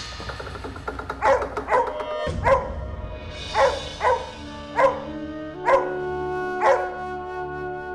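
A dog barking repeatedly, about eight sharp barks roughly a second apart, over background music with sustained notes.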